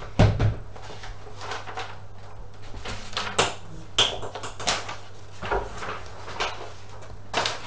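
Whiteboard eraser rubbing across a whiteboard in a series of short wiping strokes, as a marker drawing is rubbed out.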